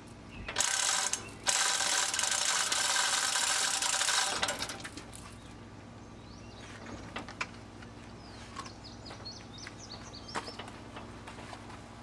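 Hand-chain hoist being worked with an engine hanging from it: chain rattling and the ratchet clattering loudly for about the first four seconds, then lighter clinks and clicks of the chain.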